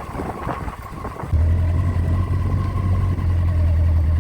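Motorcycle on the move, heard from the rider's chest-mounted phone: a steady low rumble of engine and wind on the microphone, which jumps louder about a second in and then holds.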